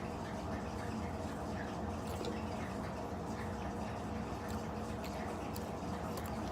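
Steady low hum of room tone with a few faint, scattered clicks of utensils and food containers during eating.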